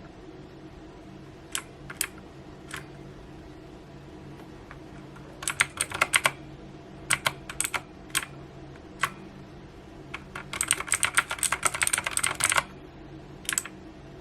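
Ajazz AK33 mechanical keyboard with clicky blue switches: scattered single key presses and small clusters of presses, then a fast run of typing for about two seconds near the end.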